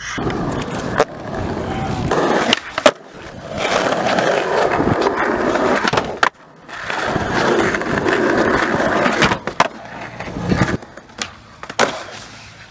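Skateboard wheels rolling over asphalt and concrete, with several sharp clacks of the board popping and landing, in separate takes that start and stop abruptly.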